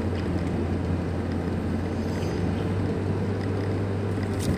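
Steady cabin noise of a moving car: a constant low engine hum with road and tyre noise.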